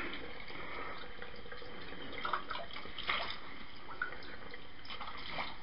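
Plastic carrier bags rustling and crinkling in a few short bursts over a steady background hiss.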